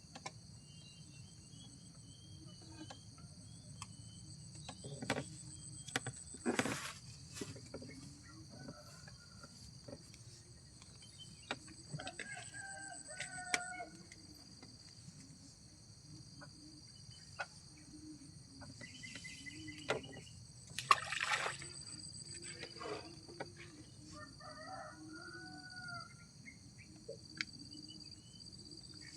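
Outdoor ambience dominated by a steady, high-pitched insect chorus, with a distant rooster crowing twice and a few sharp knocks.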